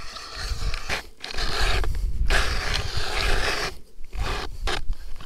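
Hand-cranked ice auger cutting into lake ice: a steady grinding scrape from the blades as it turns, broken by short pauses about a second in and again near the end.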